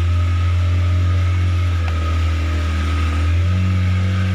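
Outboard-style engine of a ketek, a small wooden river motorboat, running steadily underway with a deep hum that shifts slightly in pitch a little over three seconds in.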